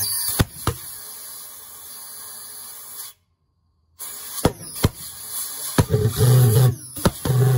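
Start attempt on a homemade valveless propane pulse jet: compressed air hissing through the engine, broken by sharp snaps and pops, with a low buzzing drone setting in over the last couple of seconds.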